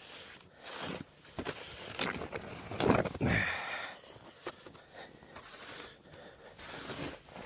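Snow shovel scraping and pushing snow in a run of uneven strokes, the loudest about three seconds in.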